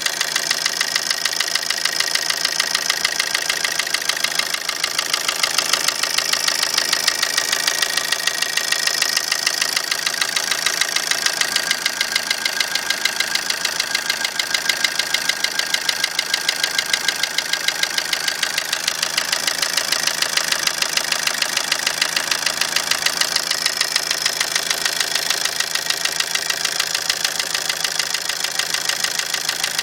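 Opel Combo's 1.3 CDTI four-cylinder common-rail diesel idling steadily with a rhythmic knock, the fault the owner is showing.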